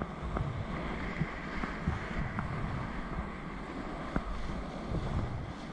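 Whitewater rushing around a kayak surfing a river wave, with wind buffeting the camera microphone. A few light knocks.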